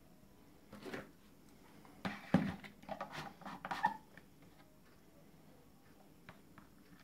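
Hands handling small plastic electronic modules and cables on a board: soft clicks, taps and rubbing, once briefly about a second in and in a busier run from about two to four seconds in.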